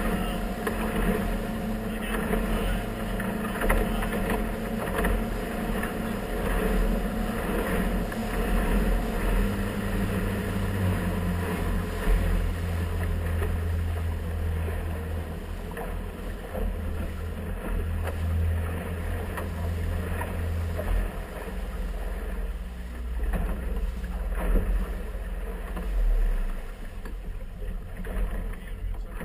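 An inflatable boat's outboard motor running under way, with wind and water noise. About ten seconds in, the engine note drops lower and steadies, then eases off after about twenty seconds as the boat comes up to a buoy.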